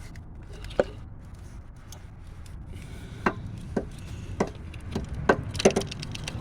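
A series of sharp clicks and knocks, about eight, most of them bunched in the second half, over a steady low rumble: hands and tools working on parts at a car's automatic transaxle during a shift solenoid replacement.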